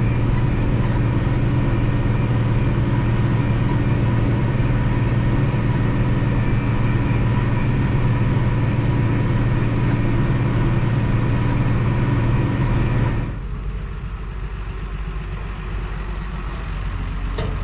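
New Holland TM165 tractor's six-cylinder diesel engine running steadily under way with a deep, even hum. About thirteen seconds in the sound drops abruptly to a quieter, thinner engine note.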